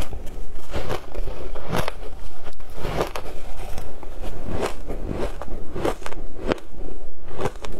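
Matcha-dusted crushed ice crunching as it is bitten and chewed, a fast, irregular run of crisp crunches.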